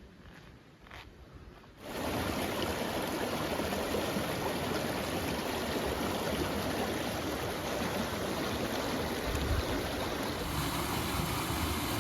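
Rushing water of a canyon creek, a steady dense rush that starts abruptly about two seconds in, after a few faint taps, and shifts slightly near the end.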